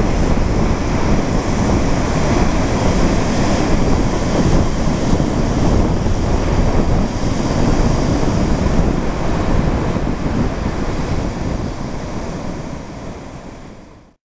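Wind buffeting the microphone over the rush of breaking sea surf, fading out over the last few seconds.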